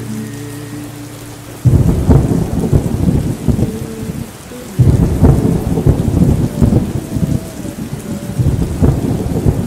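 Thunderstorm: a loud crack of thunder breaks in about a second and a half in and rumbles on, and a second clap hits about five seconds in, over steady rain. A few low held tones fade out before the first clap.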